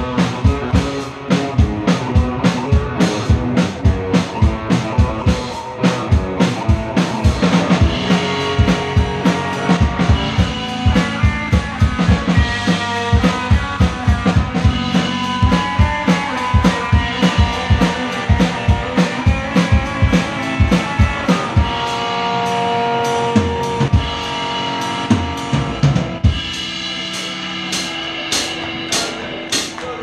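Live rock band playing: electric guitar, bass guitar and drum kit, with a steady, hard-hit drum beat driving the song.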